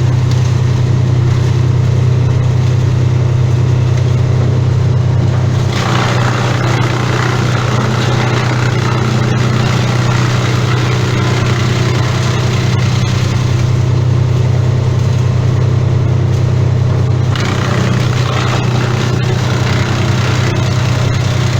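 Chainsaw engine running steadily at high speed. From about six to seventeen seconds in, it grows harsher and noisier, then eases back.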